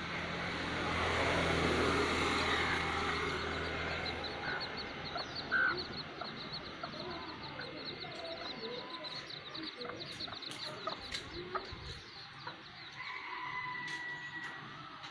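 Chickens clucking, with a low steady hum that ends about four seconds in. Rapid high ticking runs through the middle, and a short falling call comes near the end.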